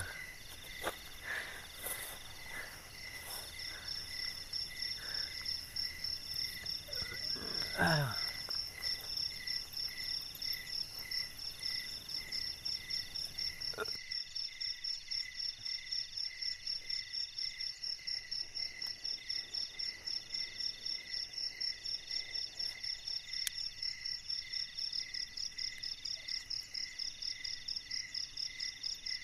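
Night chorus of crickets and other insects: several rapidly pulsing chirps at different pitches that keep going steadily. About eight seconds in, a short falling vocal sound is the loudest thing heard.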